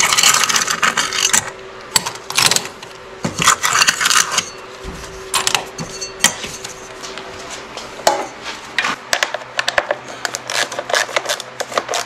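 Hand tools and small metal parts clattering, clicking and scraping as they are picked up and moved around on a workbench, with louder rummaging in the first few seconds.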